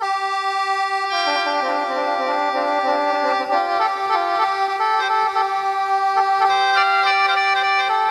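Instrumental folk music on a free-reed mouth organ (khèn): a steady drone note held under a slow melody of sustained reedy notes.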